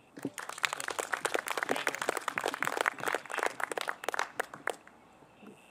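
Audience applauding, with individual hand claps standing out, dying away about five seconds in.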